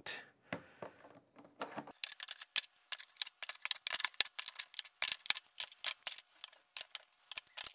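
Rapid, irregular metallic clicking and ticking as a wrench works the nuts down on the hold-down bolts of a toilet flange adapter. A few scattered clicks come first, and the dense clicking starts about two seconds in.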